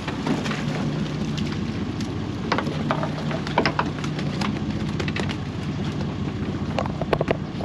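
Boat's engine idling with a steady low hum, with scattered sharp clicks and knocks throughout.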